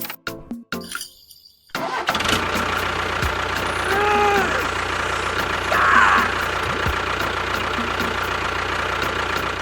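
A motor running steadily, setting in abruptly about two seconds in, with a brief pitched tone that rises and falls about four seconds in.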